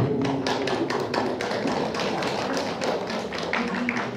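Scattered hand clapping from a small audience: a quick, irregular run of claps that thins out near the end.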